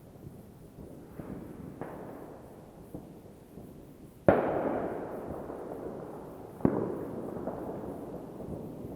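Fireworks going off: a few faint pops, then a loud bang a little under halfway through that fades in a long rumble, and another sharp bang about two-thirds in.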